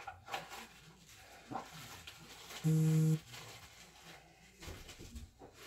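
Faint handling clicks and rustles, with one short, steady electronic buzz of about half a second near the middle.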